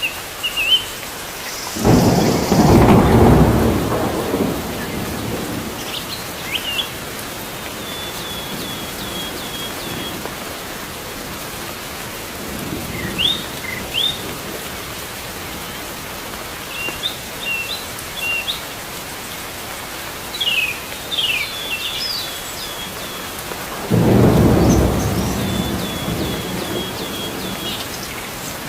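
Steady rain with two rolls of thunder, one about two seconds in and one near the end. Birds chirp and call in short high notes between them.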